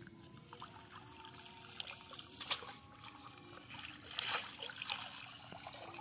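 Water trickling and dripping off a wet cast net as it is lifted from the river, with a few faint splashes.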